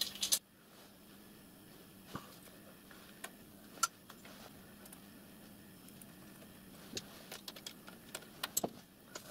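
Faint scattered clicks and taps of metal-on-metal handling as a thin brass fixing band is fitted round a miniature steam locomotive's boiler cladding and its small fixing screw is turned with a screwdriver; the clicks come thicker near the end.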